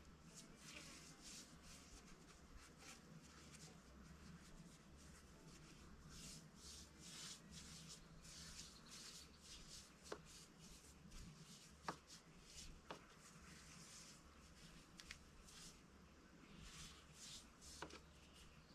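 Faint, irregular rubbing or scraping strokes, roughly one or two a second, with a few sharp clicks.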